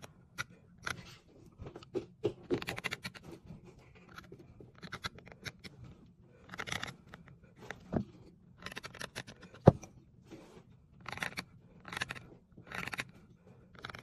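Seal-carving knife cutting characters into a stone seal, single-blade strokes, as a run of short, scratchy grating cuts every half second to a second. A sharp click just before ten seconds in is the loudest sound.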